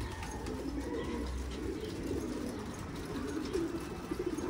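Domestic pigeons cooing, several birds' low, warbling coos overlapping without a break.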